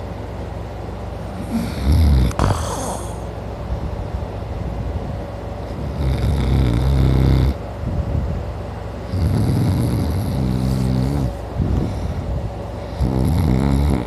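A sleeping man snoring loudly: four snores, one every three and a half to four seconds, each lasting a second and a half to two seconds.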